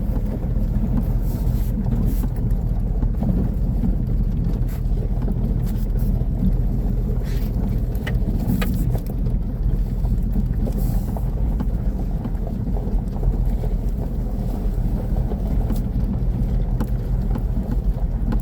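Off-road vehicle driving slowly over a rocky canyon trail: a steady low engine and drivetrain drone inside the cab, with scattered short knocks and rattles as it rolls over rock.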